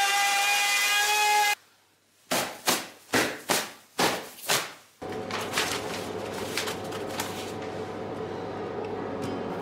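An electric wood router whines steadily while routing the edge of a wooden tabletop, then stops abruptly. About six sharp slaps follow as hands beat wood shavings off trousers, and then a steady hum takes over.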